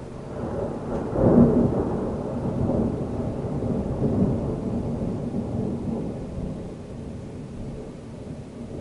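Thunder from a severe thunderstorm rumbling: it swells to its loudest about a second in, then rolls on and slowly dies away over several seconds.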